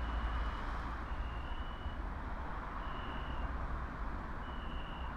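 Steady low rumble under a faint, high-pitched electronic beep that repeats about every one and a half to two seconds, each beep lasting around half a second or more.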